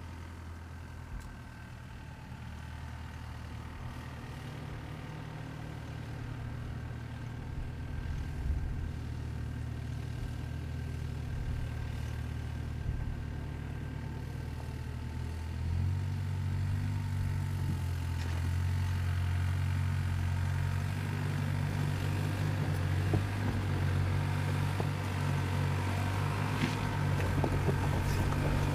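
2024 Toyota Land Cruiser's engine, a 2.4-litre turbocharged four-cylinder hybrid, running at low speed as the SUV crawls off-road. About halfway through the engine note steps up and gets louder, and near the end faint clicks and crunches of stones under the tyres come in.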